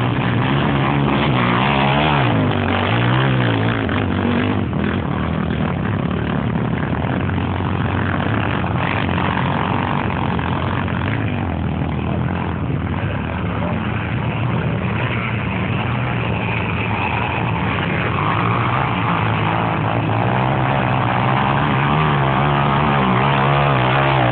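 Off-road 4x4 engine working hard under load on a steep climb, its note rising and falling with the throttle and loudest near the start and the end.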